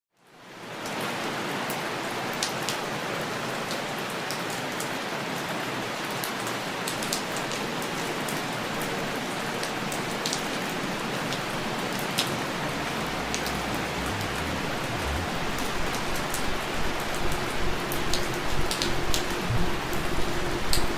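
Heavy rain falling steadily, fading in over the first second, with scattered sharp drop hits. It grows a little louder and more uneven near the end.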